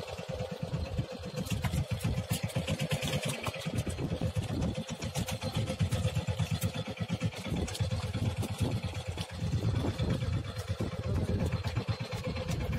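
A fishing boat's engine running steadily, a constant hum with a fast, rough low-end throb.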